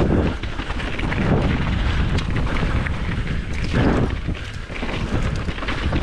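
Wind buffeting the camera microphone on a mountain bike riding a trail, a heavy low rumble with rough crackling and swells.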